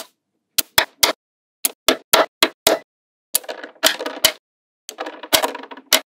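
Small magnetic balls clicking sharply as they snap together: about a dozen quick clicks, with two stretches of rubbing and scraping among them in the second half.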